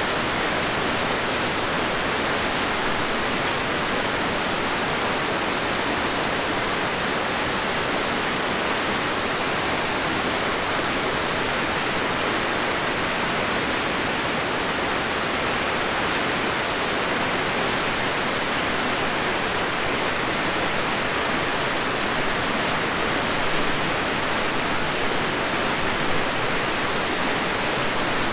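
Steady rush of the Crystal River's waterfall cascading over rock, a constant hiss with no breaks.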